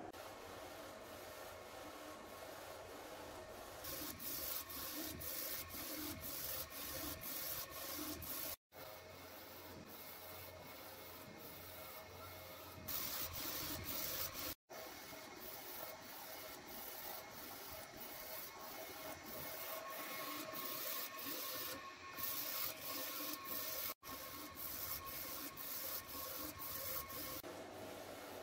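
A3 UV flatbed printer printing on bottles in a rotary attachment: the print carriage shuttles with a regular rasping whir, about three strokes a second, over the steady hum of cooling fans.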